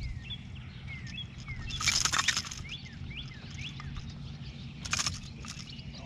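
A small bird chirping in a run of short quick notes over a steady low hum. A loud rushing burst of noise comes about two seconds in and a shorter one about five seconds in.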